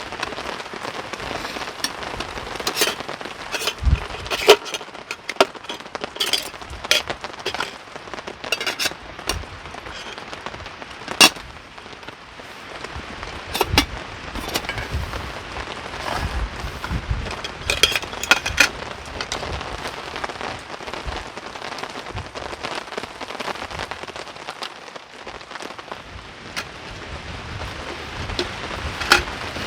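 Heavy rain: a steady hiss with many sharp, irregular drop hits close by, and now and then a low rumble of wind.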